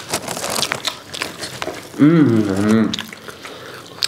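Close-miked eating sounds of people biting and chewing fried chicken: wet clicks, smacks and crackles. About two seconds in, a voice makes a short sound of wavering pitch that lasts about a second.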